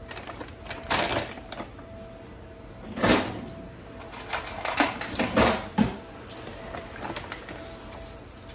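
Kitchen handling noises while ground flaxseed is measured out with a tablespoon: a few short scrapes and rustles, the loudest about three seconds in and a cluster around five seconds, over a faint steady hum.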